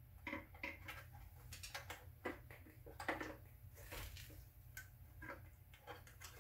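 Faint, scattered clicks and taps of plastic as spark plug wires are handled and pushed onto a clear distributor cap, over a low steady hum.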